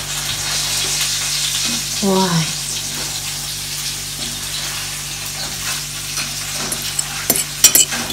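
Steady sizzling of food frying in a pan, with a few sharp clinks of a metal fork on a china plate near the end.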